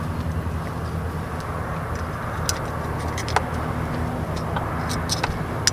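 A steady low motor hum, with a few sharp clicks scattered through as pliers work a hook out of a redfish's mouth.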